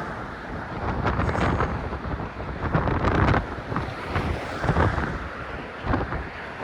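Wind buffeting a phone's microphone in irregular gusts, with a heavy low rumble that surges several times.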